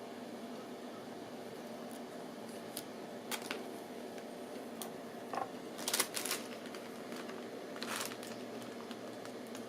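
Faint clicks and rustles of a USB cable and plug being handled and connected, a few separate ones spread through, over a steady low hum.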